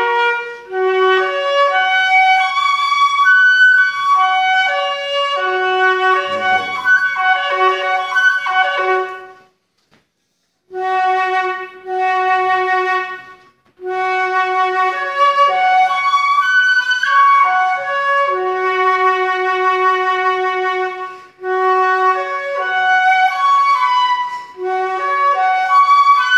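Instrumental music on a wind or reed instrument, playing a melody of held notes over a sustained lower note. About ten seconds in it stops for a second, then goes on.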